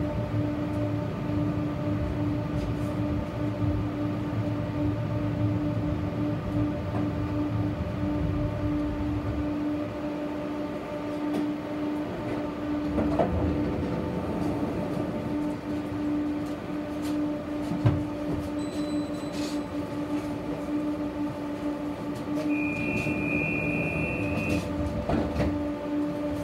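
Tram running, heard from inside the car: a steady electric hum over the rumble of the wheels, with scattered clicks from the rails. A high steady beep sounds for about two seconds near the end.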